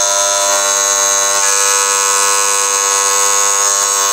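Small high-speed motor spindle running a 3 mm end mill: a steady, high-pitched whine of several tones, as the cutter takes a light slice off the end of a brass adjusting nut.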